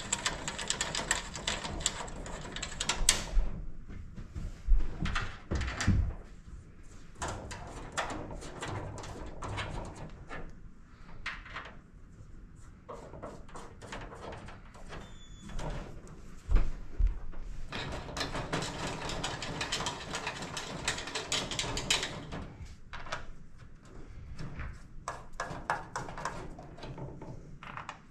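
Repeated clicks, knocks and rattles from a collapsible K&J dog crate's panels and fittings being handled and fastened by hand, with denser rattling at the start and again about two-thirds of the way through.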